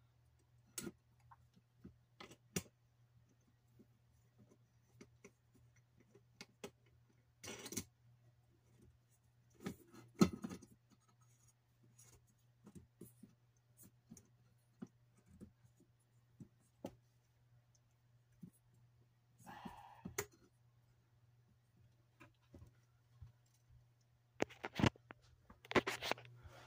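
Sparse light clicks, taps and scrapes as hands fit and tighten the glass dome and finial of an RV ceiling light fixture, with a few louder scraping knocks along the way. Louder rustling knocks come near the end as the camera is handled. A faint steady low hum runs under it all.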